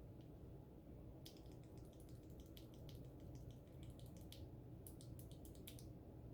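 Faint, quick, irregular clicks and light clinks of small plastic keyboard parts, such as switches and keycaps, being handled during assembly, over a low room hum.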